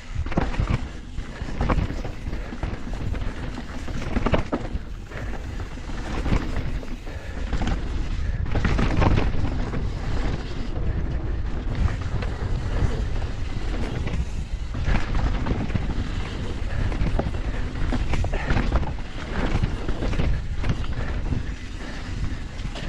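Full-suspension carbon e-mountain bike descending a loose dirt trail: steady rushing wind noise on the microphone and tyre noise over dirt, with frequent knocks and rattles from the bike as it hits bumps.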